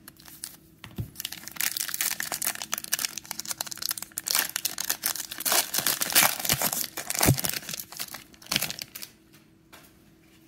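Plastic wrapper of a trading-card cello pack being torn open and crinkled by hand: dense crackling, loudest in the middle, that dies down about nine seconds in.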